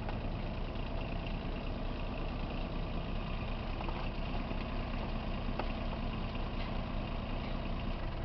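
Bobcat 322 compact excavator's diesel engine running steadily, with a few faint clicks over it.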